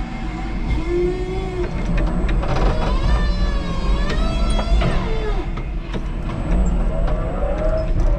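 Electric forklift truck working under a steady deep hum, with wavering motor whines and a few sharp knocks from the mast and forks as it pulls clear of a load and drives off.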